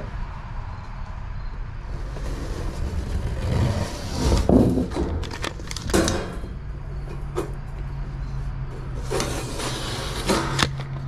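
Galvanized sheet-metal panel being shifted and handled on a plywood bench while it is measured and marked, with scattered scrapes and knocks over a steady low hum; a second low steady hum joins about two-thirds of the way in.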